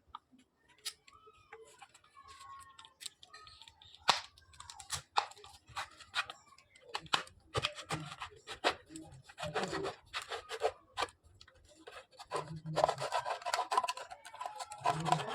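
Plastic drink bottle being cut through: irregular crackling, snipping and clicking of the thin plastic, sparse at first and busier from about four seconds in.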